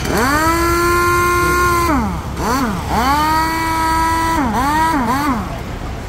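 Elephant-brand IW02 air impact wrench run free on compressed air with the trigger squeezed in bursts. It spins up to a steady high whine for about two seconds and winds down, gives two quick blips, runs again for just over a second, then gives a few more short blips and winds down near the end.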